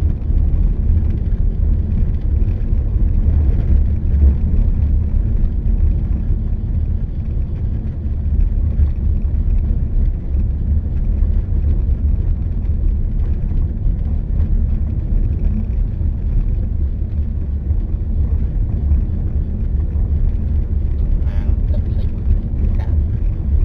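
Steady low rumble of wind and road noise from a moving vehicle, with faint voices near the end.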